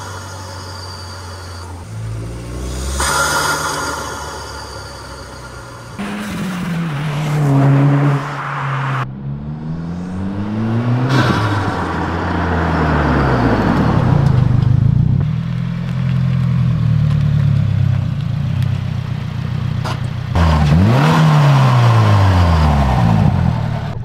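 Turbocharged FA24 flat-four of a 2022+ Subaru WRX, fitted with a Perrin turbo inlet, revving and accelerating over several pulls. Its pitch climbs and falls, with stretches of high turbo whistle and hiss, and the car drives past once or twice.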